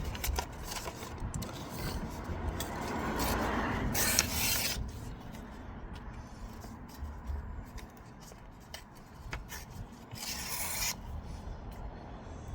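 Hand wet sanding of car paint with 2500-grit wet-and-dry paper: a steady rubbing rasp of paper over the panel, with two brief hissing bursts about four and ten seconds in.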